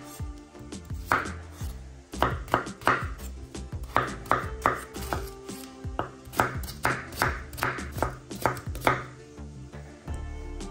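A knife chopping vegetables on a cutting board: a run of sharp cuts, about two to three a second, with short pauses between runs.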